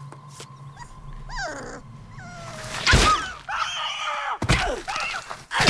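A small dog yelps, and a heavy stomping thud lands about three seconds in. High wavering screams follow, with more sharp thuds near the end.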